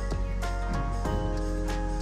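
Background music: a soft instrumental with plucked guitar-like notes over a steady low bass.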